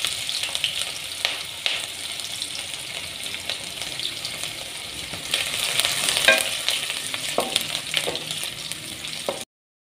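Sliced onions and whole spices sizzling in hot oil in a metal kadai, with a wooden spoon stirring and knocking against the pan now and then. The sound cuts off suddenly near the end.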